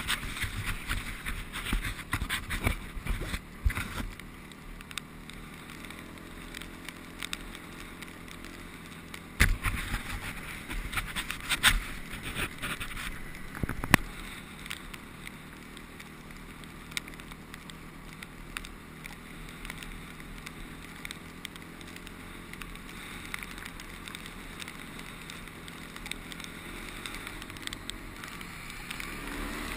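Honda CRF250X trail bike's single-cylinder four-stroke engine running as it is ridden over a rough gravel track, with wind noise on a helmet-mounted camera. Knocks and rattles from the bumps come in the first few seconds and again from about ten to fourteen seconds in, and the engine revs rise near the end.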